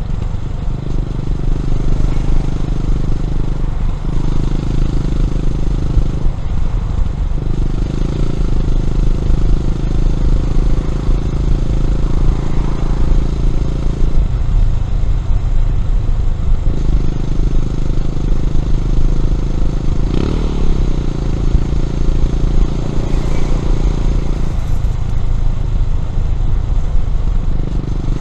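Honda CB400SS air-cooled single-cylinder engine through a Yamamoto aftermarket exhaust, running under load while riding. The steady note breaks off or shifts several times, once with a short rising sweep about two-thirds of the way in.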